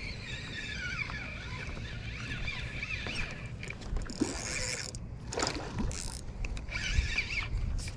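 Wind rumbling on the microphone while a Shimano Stradic 2500 spinning reel is cranked to retrieve line, with a few short high hissing bursts in the second half.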